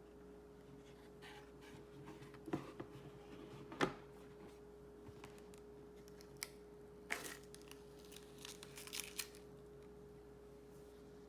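Hands handling computer parts and packaging: scattered clicks, taps and rustles, the sharpest about four seconds in, over a faint steady hum.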